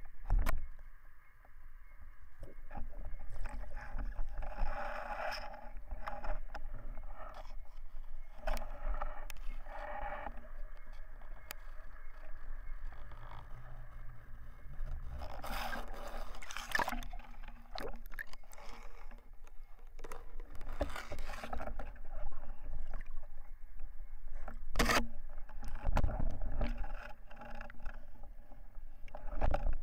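Underwater sound picked up by a camera on a speargun: a low rumble of moving water with scattered clicks, knocks and scrapes as the gun, line and speared fish are handled, the loudest bursts about 16 and 25 seconds in.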